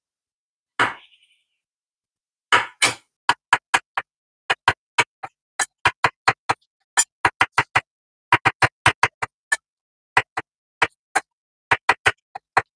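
Chef's knife slicing brown champignon mushrooms on an end-grain wooden cutting board: a run of sharp knife taps on the board, about three a second, starting after a short pause.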